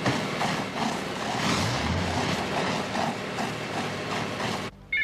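Fire hoses spraying water and foam onto crashed light-aircraft wreckage: a loud, rough, rushing hiss that cuts off sharply near the end. A telephone bell starts ringing right after the cut.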